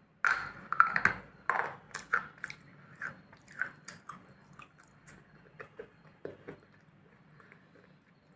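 A person bites into food held in a foil wrapper, close to the microphone, then chews with the mouth open. One loud bite comes first, followed by chewing about twice a second that grows fainter and stops a little before the end.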